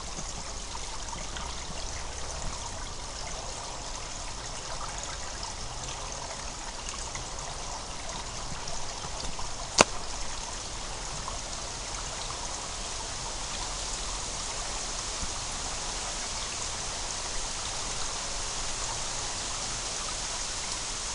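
Spring water trickling and gurgling steadily, with one sharp click about halfway through.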